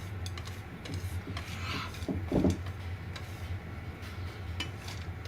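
Utensil scraping and stirring in a frying pan, with scattered light clicks over a steady low hum and one louder clunk a little over two seconds in.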